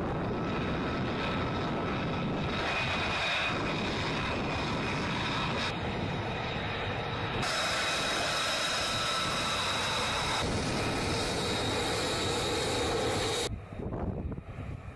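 F-35 Lightning II's Pratt & Whitney F135 jet engine running at low taxi power: a steady rushing whine with several high tones, changing abruptly at several cuts between clips. Near the end it drops to a quieter, gusty rumble.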